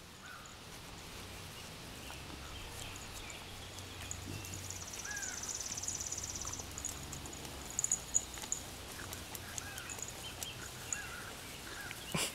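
A whippet and a small puppy play-wrestling quietly on grass, making a few soft scuffles and clicks about two-thirds of the way through. Behind them is a faint outdoor background with short high chirps and a steady high buzz in the middle.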